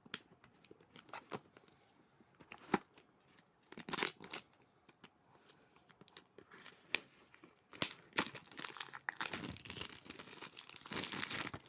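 Plastic wrapper on a product box being cut and torn open. First come scattered separate crackles and snips, then about four seconds of dense crinkling near the end as the wrapper is pulled away.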